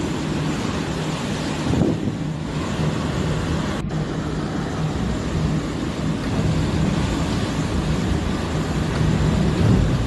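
Hurricane-force wind blowing hard, a steady rushing noise with heavy low rumble on the microphone and a faint wavering low howl.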